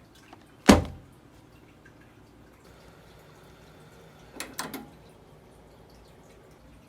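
Kitchen clatter: a single sharp knock with a short ring about a second in, then a quick run of lighter clicks and knocks near the middle.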